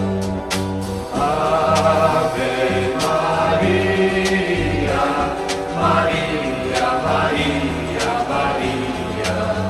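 A Portuguese Catholic hymn to Mary playing as the soundtrack: sung voices over sustained keyboard chords and a stepping bass, with a light beat.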